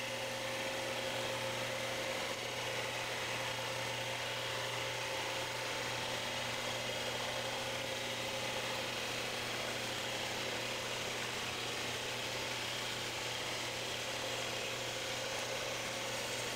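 Metal-cutting bandsaw running as its blade cuts through metal block stock, a steady mechanical hum.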